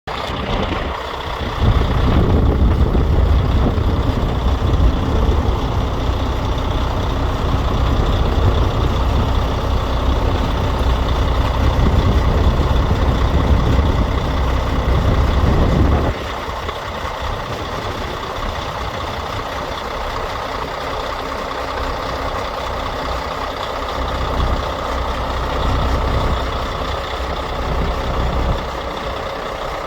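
Volvo D12 straight-six diesel engine of a dump truck running. It is louder, with a heavy low rumble, from about two seconds in, then drops suddenly to a quieter, steadier run about halfway through.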